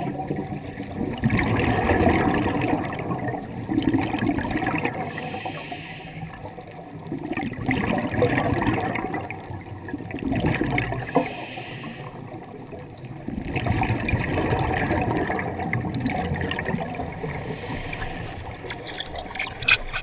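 Muffled gurgling and rushing of water heard underwater through a camera housing, swelling and fading every few seconds, with a few sharp clicks near the end.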